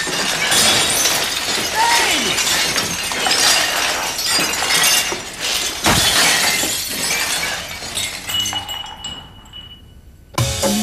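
Ceramic mugs crashing and shattering without a break as shelves of them are smashed with a long pole, with shards clinking and scattering. The crashing thins out about eight seconds in and dies away, and music with a beat starts near the end.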